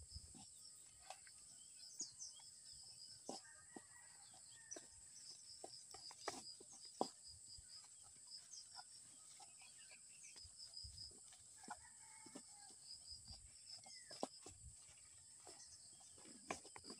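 Near silence: a faint, steady insect trill with a regular pulsing chirp, over soft scattered clicks and rustles as dry coconut husk fibre is handled and laid on hot ash.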